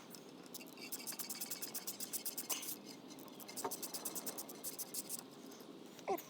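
Ratchet wrench clicking in quick, even runs of about eight clicks a second, with a short squeak near the end.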